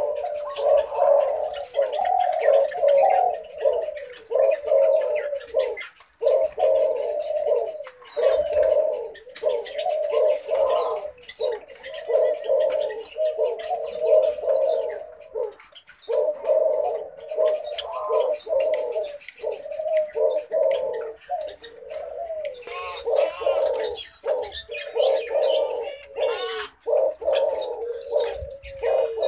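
Male tangerine Eurasian collared dove cooing over and over in low, rolling phrases with short pauses. Higher chirps join near the end.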